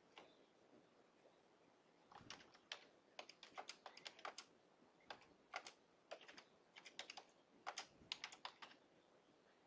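Faint typing on a computer keyboard: quick runs of keystroke clicks with short pauses between words, starting about two seconds in.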